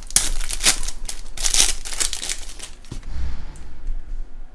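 Foil wrapper of a trading card being torn open and crinkled by hand, crackling in quick bursts for about three seconds, then dying down to faint handling.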